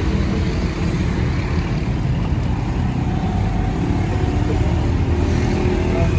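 Street traffic: a steady low rumble of engines.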